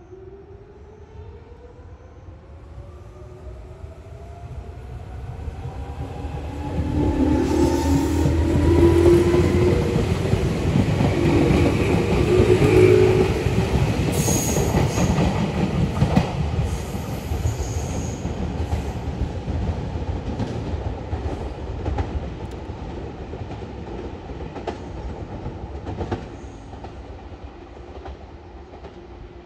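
Meitetsu 6000 series electric train approaching and passing close by: the traction motors whine, rising steadily in pitch as it accelerates. Then comes a loud rush of the cars going past with wheel clatter over the rail joints, fading as it runs away.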